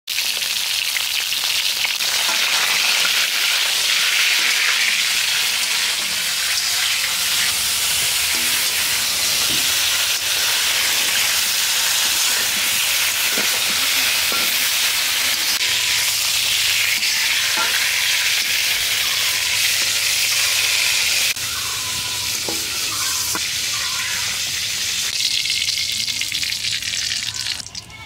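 Pieces of pointed gourd frying in hot oil in a pan: a loud, steady sizzle, with a utensil stirring and scraping now and then. The sizzle drops in level about three-quarters of the way through and dies down near the end.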